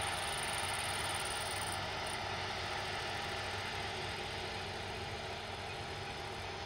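Distant farm tractor engine running steadily under load as it pulls a tillage implement across stubble, with a thin high hiss above it that weakens about two seconds in.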